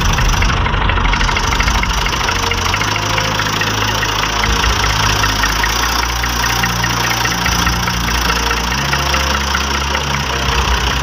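Tractor diesel engine running steadily while driving, heard close up from the seat, with a fast, even ticking of its firing strokes; its low note steps up and down slightly a few times.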